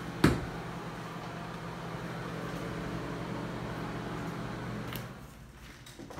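Bathroom exhaust fan running with a steady hum, with a sharp knock about a quarter second in; the hum drops away about five seconds in.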